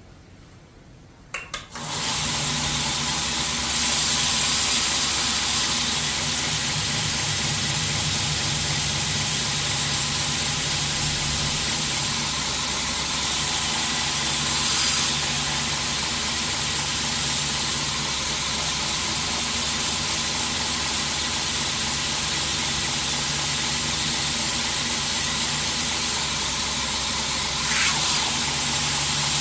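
2x72 belt grinder clicked on about two seconds in and then running steadily: a motor hum under the loud hiss of the abrasive belt.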